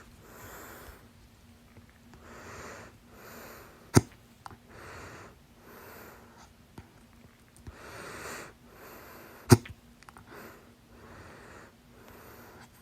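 A woman hiccupping: two loud, sharp hiccups about four seconds and nine and a half seconds in, with steady breathing in and out between them.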